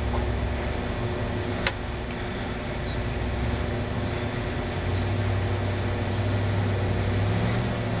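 A car's engine revving as the sedan struggles for traction on a snow-covered street, the engine note stepping up about five seconds in. One sharp click about a second and a half in.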